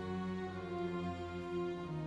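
Slow orchestral music: bowed strings holding long sustained chords that shift gently.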